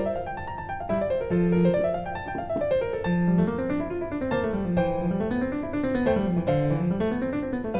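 Background piano music: flowing runs of notes that rise and fall over and over.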